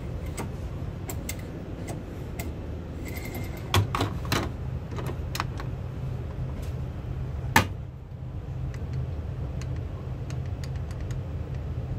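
Scattered light clicks and taps of seat-console buttons being pressed, with a sharper click about seven and a half seconds in and two more about four seconds in. Under them runs the steady low hum of the Airbus A330-300 cabin.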